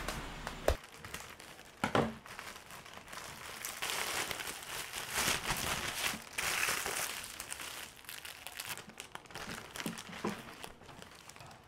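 Plastic shopping packaging crinkling and rustling as a clear plastic bag of clothing is handled and opened, loudest in the middle, with a few sharp knocks near the start and near the end.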